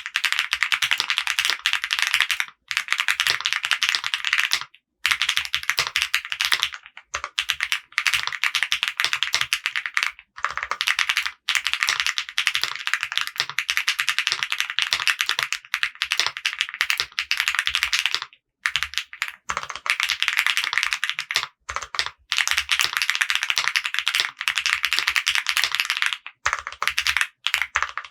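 Rapid continuous typing on a custom mechanical keyboard with lubed Akko CS Jelly White linear switches, an FR4 plate and CMK ABS keycaps, a dense stream of keystroke clacks in runs of several seconds broken by brief pauses.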